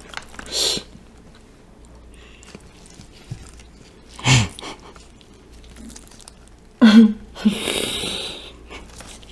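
Close-miked chewing and crunching, then about seven seconds in a short low vocal grunt followed by about a second of breathy, wheezing laughter.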